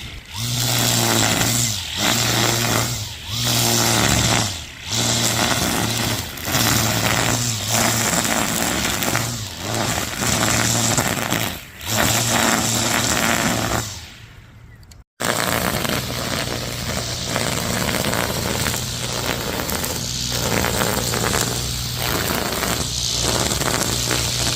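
Homemade battery-powered grass cutter's electric motor running at speed: a steady hum under a loud hiss. The sound dips and comes back again and again in the first half, breaks off a little past halfway, then runs on steadily.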